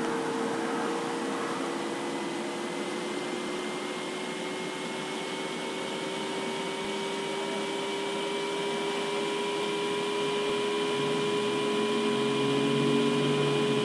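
Steady mechanical whir from a small motor, with a humming tone that slowly rises in pitch.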